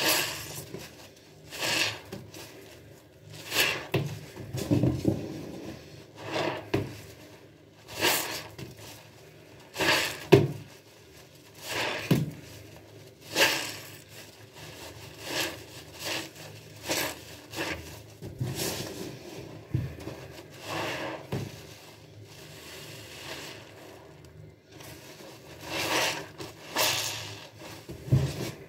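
A sponge soaked in foamy cleaner squeezed by hand again and again, each squeeze a wet squelch of lather, roughly one every one to two seconds, with a short lull a little after the middle.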